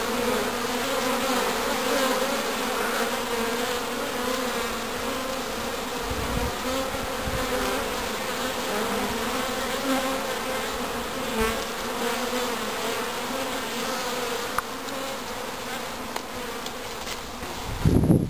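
A honey bee swarm buzzing steadily at close range, a continuous low hum. Loud low rumbles come in near the end.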